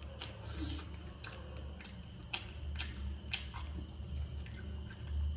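A person chewing a bite of crispy masala-fried rohu fish, with small irregular crunching clicks a few times a second apart, over a faint steady low hum.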